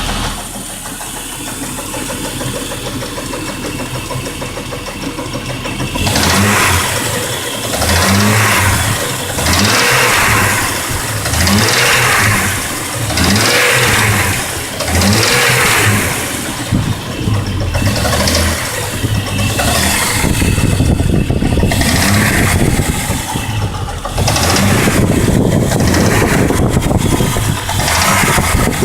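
Jeep Grand Cherokee WJ's 4.0-litre inline-six running with a clattering from the engine bay. It idles for about six seconds, is then revved in short blips about every two seconds, and runs steadier and faster near the end.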